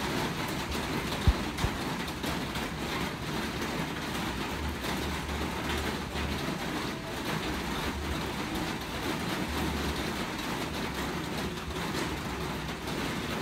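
Steady rain falling, an even hiss with no break. Two short low thumps about a second and a half in.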